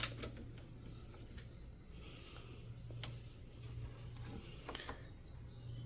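Faint, scattered clicks of a ratchet wrench tightening a car battery terminal nut, over a low steady hum.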